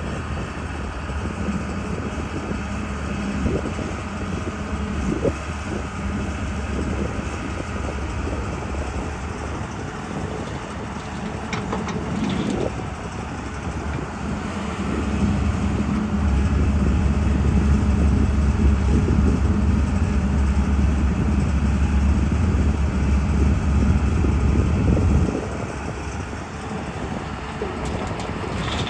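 Diesel engine of a JCB 3DX backhoe loader running while it digs and loads mud. The engine works harder and louder for about ten seconds past the middle, then drops back, with a few short knocks earlier on.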